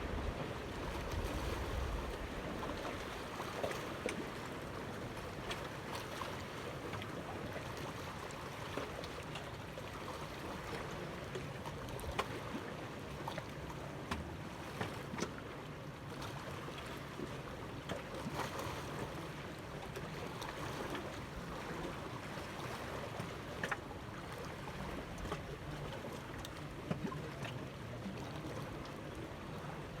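Steady wash of water and wind, with scattered light clicks and knocks; a low wind rumble on the microphone in the first couple of seconds.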